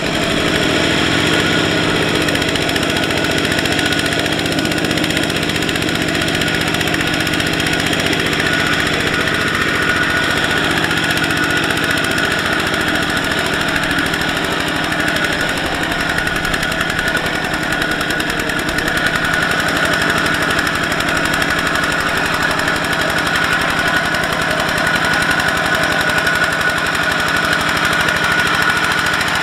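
Kubota RT120 single-cylinder diesel engine of a two-wheel power tiller running steadily at working speed, under load as it hauls a trailer of rice sacks through deep mud.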